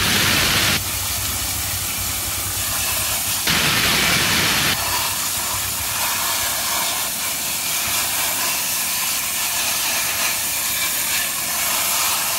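Water spraying from a hose spray nozzle, a steady hiss as the jet hits a plastic toy car and a plastic basket. It is louder for about the first second and again for a second or so from about three and a half seconds in.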